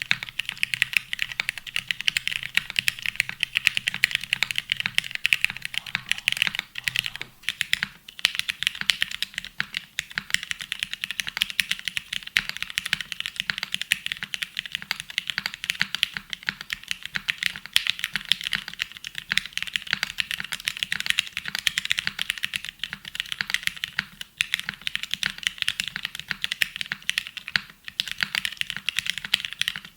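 Dense, rapid clicking that runs on steadily, broken by a few brief pauses.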